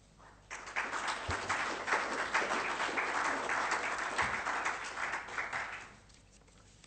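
Audience applauding, starting about half a second in and dying away about a second before the end.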